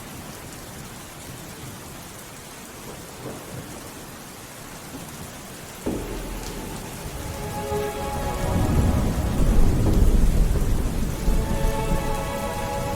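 Steady rain falling, with a deep rumble of thunder that comes in suddenly about six seconds in and swells to its loudest a few seconds later.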